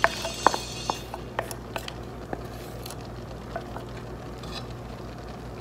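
A spoon knocking and scraping against a pot while ground beef and sausage brown in it, with several sharp irregular knocks in the first two seconds or so and a faint steady sizzle underneath.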